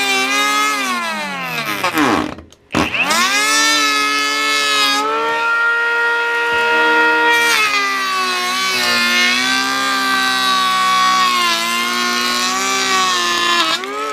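Parkside 12 V brushless cordless planer's motor whining at high speed while planing wood. About two seconds in it spins down and cuts out briefly, then restarts and runs up again quickly. Its pitch dips and wavers as the blades take the cut, and it begins to wind down at the end.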